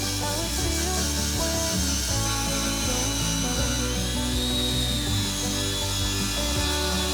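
Background music over a steady, high-pitched power-tool whine that shifts up in pitch about four seconds in, typical of rust being ground off metal.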